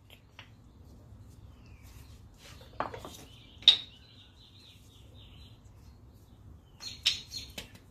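A few sharp metallic clicks and clinks of brake pads and tools being handled: one about three seconds in, the loudest just after, and a quick cluster near the end.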